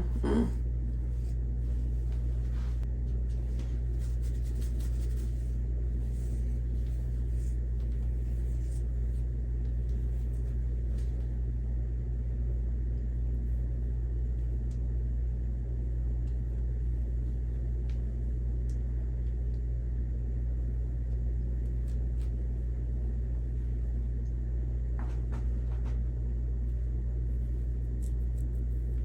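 Steady low rumbling hum that does not change, with a few faint ticks.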